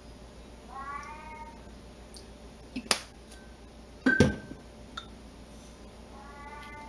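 Domestic cat meowing twice, once about a second in and again near the end. Between the meows come two sharp knocks, the second the louder.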